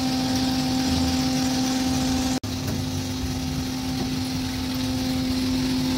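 Small gas-fired drum coffee roaster running mid-roast, while the beans are drying and beginning to yellow. Its motor gives a steady hum at one fixed pitch over the rush of the burner and the chaff blower. The sound cuts out for an instant about two and a half seconds in.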